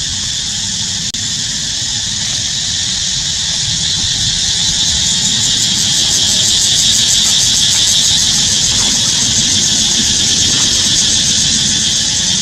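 A steady, high-pitched droning chorus of forest insects that swells louder about halfway in, with a fast, even pulsing, over a constant low rumble.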